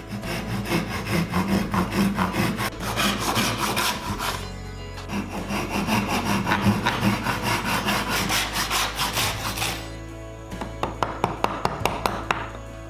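Hand saw cutting through a wooden spoon blank in quick back-and-forth strokes, in two runs of about four seconds with a short pause between. Near the end, a run of sharp knocks as a gouge is driven into the wood.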